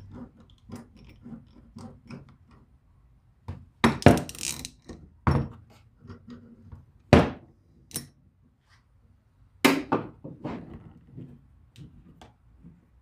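Metal and wooden parts of an antique Stanley transitional hand plane being handled and set down on a workbench: a string of small clinks and knocks, with louder knocks about four, seven and ten seconds in.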